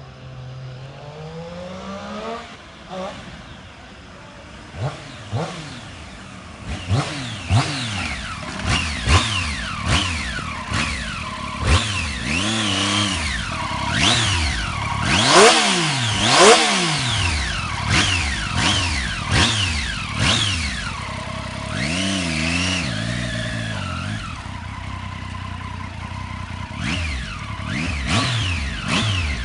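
Triumph Street Triple 675's inline three-cylinder engine on its stock exhaust, revved in repeated quick blips that rise and fall in pitch. A few longer, higher revs come around the middle, and it settles to a steadier run with smaller blips near the end.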